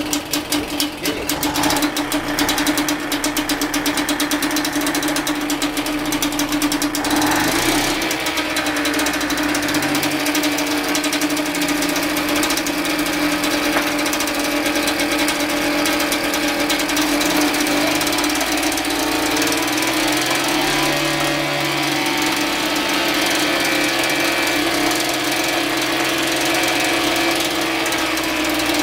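British Seagull single-cylinder two-stroke outboard motor running with rapid, even firing, on the first run of a newly assembled engine. Its speed shifts about 7 to 8 seconds in and again around 20 seconds.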